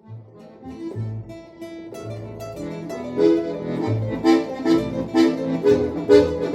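Small live band playing music at a sound check, starting softly and getting louder, with separate low bass notes under repeated chords.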